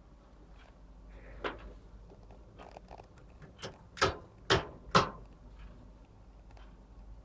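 Three sharp knocks about half a second apart, a little past halfway through, with a softer thump and a few faint taps before them over a low steady hum.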